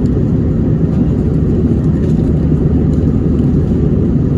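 Steady low rumble of engine and airflow noise inside an airliner's cabin in flight.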